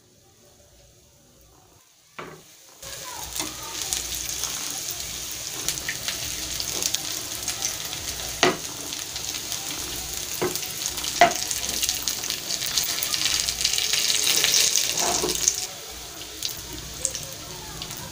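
Breaded potato cheese balls frying in shallow oil in a nonstick pan: a steady sizzle that starts about three seconds in, with a few sharp clicks of a spatula against the pan.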